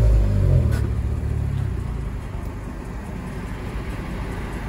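Honda Civic Si's K24 four-cylinder exhaust, through an aftermarket downpipe, falling in pitch as the revs drop after a blip, then settling into a steady idle rumble about two seconds in.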